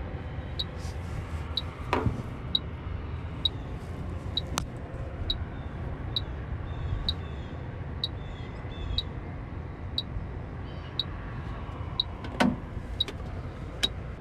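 H10 electronic refrigerant leak detector ticking at a steady rate of just over one tick a second as its probe is held to a compressor's fittings; the rate does not speed up, so no leak is being signalled. Under it is a steady low rumble, and a few knocks come from the probe being handled.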